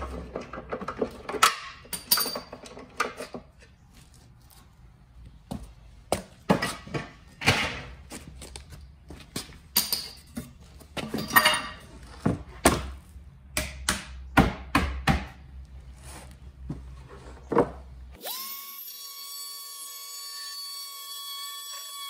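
Sharp, irregular knocks and cracks of hand work on a particleboard panel. About 18 s in, a corded oscillating multi-tool starts up, rising quickly into a steady buzzing whine.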